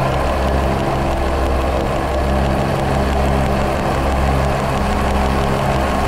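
Experimental noise music: a loud, dense rumbling drone under a steady hiss, with low tones cutting in and out about once a second.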